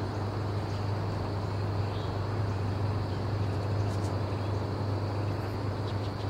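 Steady outdoor background noise, an even hiss over a constant low hum.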